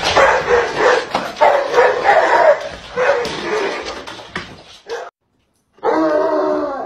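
Dogs vocalizing in a run of drawn-out, pitched calls. The sound cuts out for under a second about five seconds in, then another dog starts a long call.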